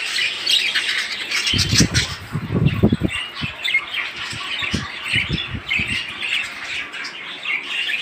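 A flock of budgerigars chirping and chattering continuously in cages, with bouts of low rumbling about a second and a half in and again around five seconds in.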